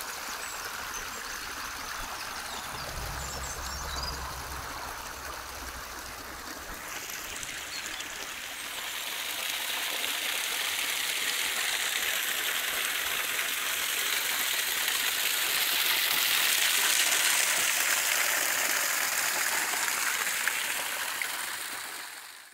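Water running in a small forest stream, then a steady splashing gush of water pouring from the end of a pipe. It grows louder about eight seconds in and fades away at the very end.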